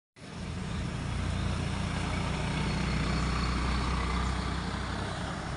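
Steady low rumble of a motor vehicle's engine, with a rise of traffic-like noise about three to four seconds in that then eases off.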